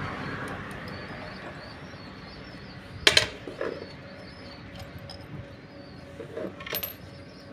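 Two sharp knocks about three and a half seconds apart, the first the loudest, each followed by a few fainter knocks, over a faint steady hum.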